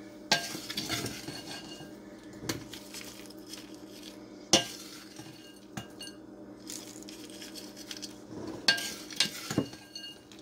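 Wooden spoon scooping crumbled butter brickle (baked oat, brown sugar and pecan crumble) from a glass bowl, scraping and now and then knocking against the glass, with crumbs sprinkled over a soft topping. The knocks come every second or two, the loudest about four and a half seconds in.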